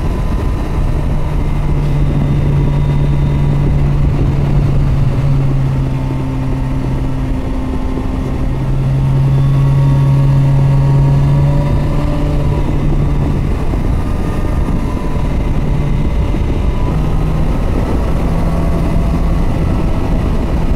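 Kawasaki Versys 1000 SE's liquid-cooled inline-four engine running at a steady cruising pace under heavy wind and road rush. The engine note dips out briefly about eight seconds in, is strongest just after, and fades in and out near the end.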